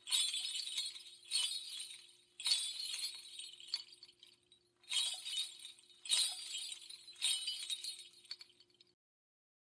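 Bright, high-pitched chimes struck a little over once a second, six in all, each ringing and fading over a faint steady low tone. The sound cuts off suddenly near the end.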